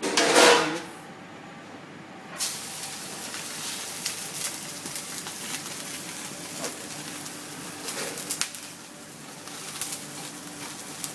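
Beef tenderloin searing in hot olive oil in a thick-bottomed pan: a steady sizzle with scattered crackles that sets in about two and a half seconds in. A short loud burst comes at the very start.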